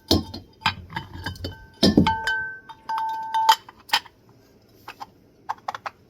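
Metal ceiling fan motor parts clinking and knocking together as the bottom housing is fitted onto the motor over its new bearings, with a short ringing tone from the metal about two seconds in. A few lighter clicks follow near the end.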